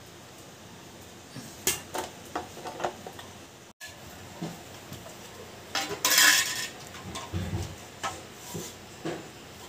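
Scattered light clinks and knocks of small hard objects, with a short rustling burst about six seconds in.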